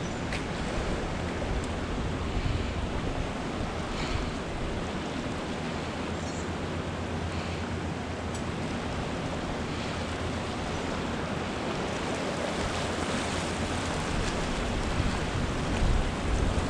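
Steady rush of turbulent whitewater churning below a dam, with wind buffeting the microphone in a low, fluttering rumble.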